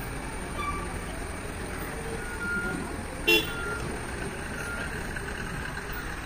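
Steady low rumble of a loaded Tata SE1613 tipper truck's diesel engine as it drives off, with one short horn toot about three seconds in.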